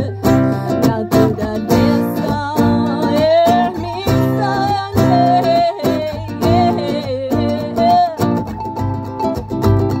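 Live band music: acoustic and electric guitar over a cajón beat, with a wavering lead melody line bending in pitch above them.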